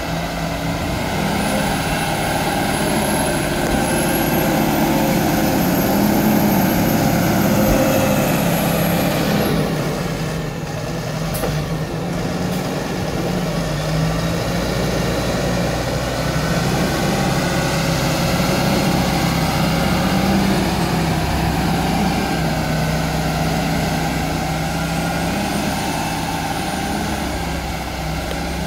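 Fendt tractor's diesel engine working under load as it drives a front-mounted silage blade through chopped grass silage. The engine note rises and falls steadily. A thin high whine comes in over the first several seconds and again near the end.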